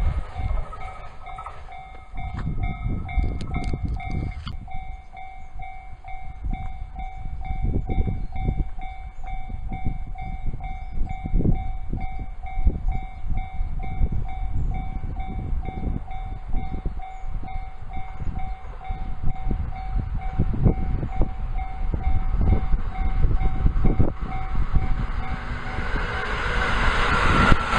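Railway level-crossing bell ringing on and on with an even, rapid clang, under an irregular low rumble. From about 24 seconds in, an electric train's running noise swells as it comes up and passes, drowning the bell near the end.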